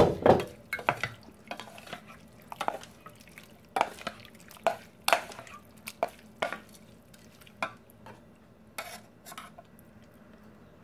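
A wooden spoon stirring and tossing minced-chicken larb in a stainless steel mixing bowl. Irregular scrapes and knocks of the spoon against the bowl come about once or twice a second. The loudest cluster falls at the very start.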